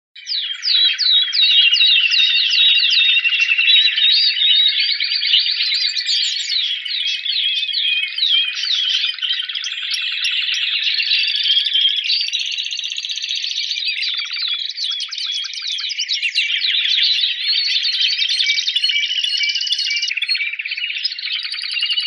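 Spanish Timbrado canary singing its contest song without a break: fast trills alternating with held, steady whistled notes.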